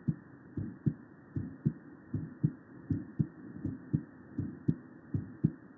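Recorded human heart sounds: a regular lub-dub, two beats per cardiac cycle at about 80 cycles a minute, over a steady background hiss.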